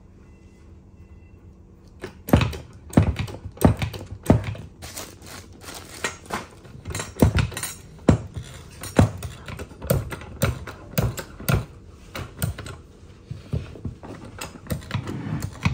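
Betex AHP 701 hydraulic hand pump being worked by its lever, starting about two seconds in: a clack and low knock on each stroke, about every two-thirds of a second. Each stroke pumps pressure into the 25TLS hydraulic wedge, spreading it open.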